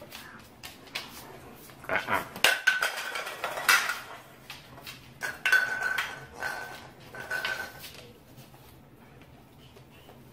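Clattering and clinking of small hard objects, a quick run of sharp knocks and clicks between about two and eight seconds in. A steady high tone sounds briefly through it twice.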